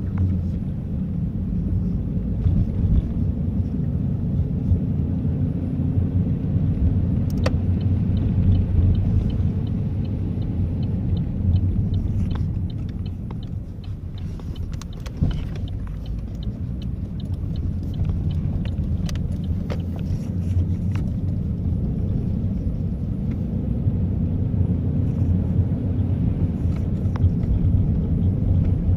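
Steady low rumble of a car's engine and tyres heard from inside the cabin while driving. There are scattered clicks, and a run of quick light ticks lasts several seconds in the middle.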